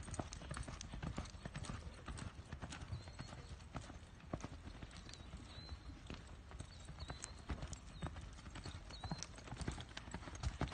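Hoofbeats of a Quarter Horse gelding galloping on arena dirt, a quick irregular run of faint thuds as it weaves through a line of poles.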